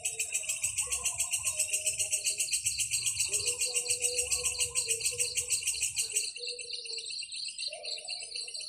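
Insects trilling in fast, even pulses, loudest for about the first six seconds and then softer. Soft held musical notes play underneath.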